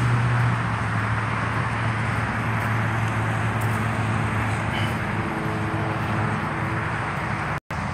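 Steady traffic noise from freeway and street traffic, with a low engine hum that fades about five seconds in. The sound cuts out for an instant near the end.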